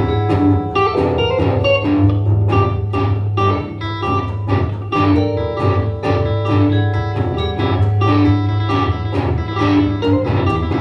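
Live instrumental band music: vibraphone, electric guitar and upright double bass playing together, a quick, even run of struck and plucked notes over a steady low bass.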